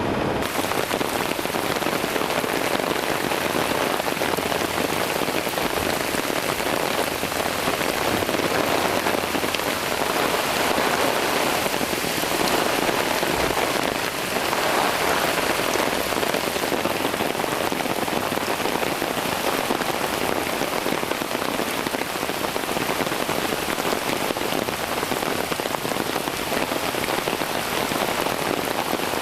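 Heavy rain from the remnants of Hurricane Gaston pouring down steadily: a dense, even hiss of drops striking surfaces, with no letup.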